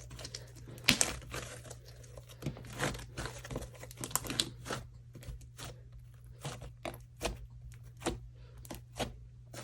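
Handmade slime being squeezed and worked by hand, with irregular sharp pops as air bubbles in it burst; the loudest pop comes about a second in.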